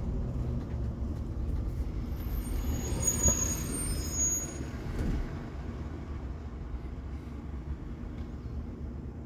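Cabin ride noise of a 2018 Blue Bird electric school bus under way: a steady low rumble from the road and tyres, with no engine, a couple of light knocks, and a brief high-pitched whine of several tones around three to four seconds in.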